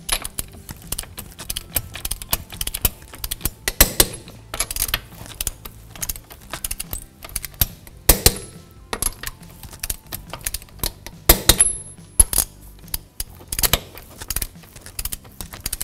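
Torque wrench tightening wheel lug nuts to 87 foot-pounds in a star pattern. It ratchets with light ticks as it is swung, and gives a sharp click several times as each nut reaches torque.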